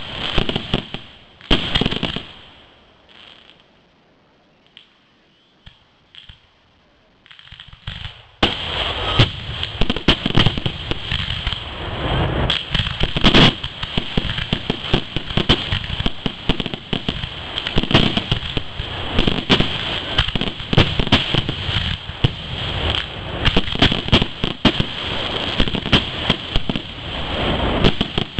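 Fireworks finale from a cake wall and aerial shells: heavy bangs for the first couple of seconds, a lull of a few seconds with only scattered faint pops, then from about eight seconds in a dense, continuous barrage of launches and bursts.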